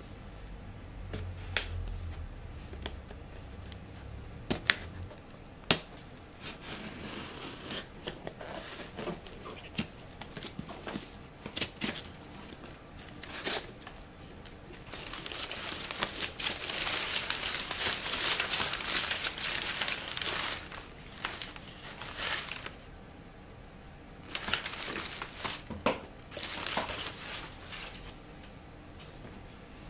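Cardboard box being unpacked: packing tape torn off, then crumpled brown kraft packing paper crinkling and rustling, densest for several seconds in the middle, with sharp clicks and knocks of the cardboard.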